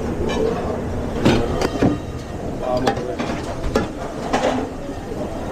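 Busy restaurant kitchen noise: scattered knocks and clatter of pans and utensils over a steady background rumble, with voices in the background.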